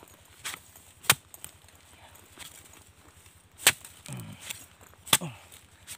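A long-handled digging tool chopping into the soil and the base of a wild bamboo shoot to cut it free: one faint strike, then three hard sharp strikes, irregularly spaced one to two and a half seconds apart.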